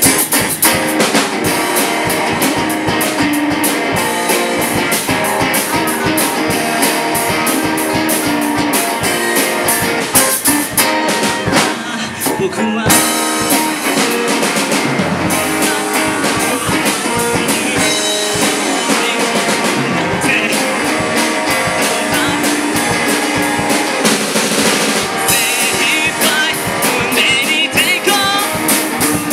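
A live rock band playing a J-rock song: drum kit, electric and acoustic guitars, with a male singer on microphone.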